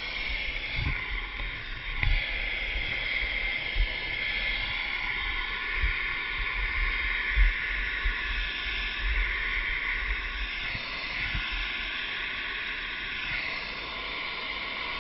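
Steady high turbine whine and hiss of a Eurocopter EC135 rescue helicopter running on the ground, with occasional low thumps on the microphone.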